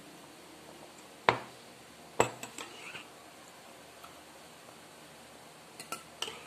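Metal spoon and ceramic mug clinking: two sharp knocks about a second apart, a few lighter clicks just after, then a quick run of light clinks near the end as the spoon goes into the mug.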